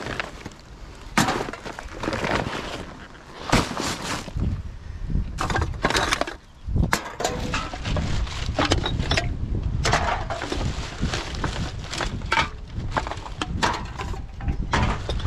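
Empty glass bottles and drink cans clinking and knocking together as they are rummaged from a plastic garbage bag, with the bag's plastic rustling. A steady low rumble joins in underneath about halfway through.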